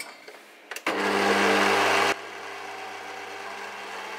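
Kenwood stand mixer switched on, its beater mixing flour into cake batter: the motor starts about a second in, louder for the first second, then settles to a steady, quieter hum.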